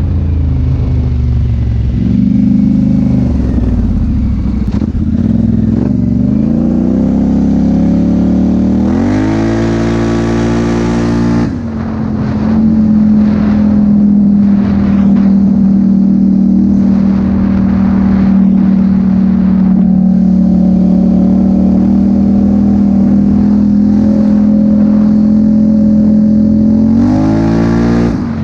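Polaris Sportsman 850 High Lifter's twin-cylinder engine through a Big Gun aftermarket exhaust, running on Big Gun's recommended tune while being ridden. Revs climb over several seconds to a high pitch and let off briefly about a third of the way in. It then holds a steady high note for a long stretch before rising and falling again near the end.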